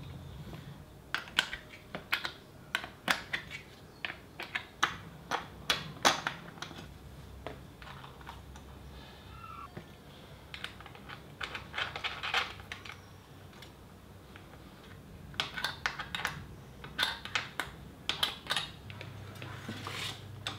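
Irregular sharp clicks and clatter of bolts and hardware against the plastic foot pedals and steel pedal arms of an air walker exercise machine as the pedals are fitted and bolted on, coming in clusters of a few clicks a second with quieter pauses between.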